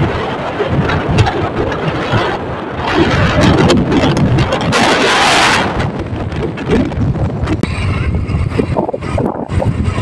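Wind buffeting a phone's microphone on a moving motorcycle, over the engine and road noise, with a brief louder rush of hiss about halfway through.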